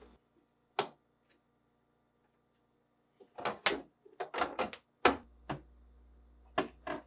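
Plastic clicks and knocks as refrigerator drawer slides are pressed onto the tabs of the side supports: a single click about a second in, a quick run of clicks and knocks from about three to five and a half seconds, and two more near the end.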